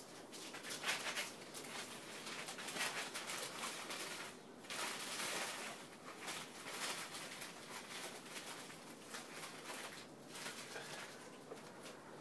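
Irregular rustling and scuffing as a person crouches and picks up dog poo from the ground, with a longer stretch of rustling about five seconds in.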